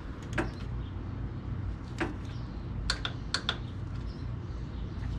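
A few scattered sharp metal clicks of a wrench and socket working under a motorcycle, two of them in quick pairs near the middle, over a steady low hum.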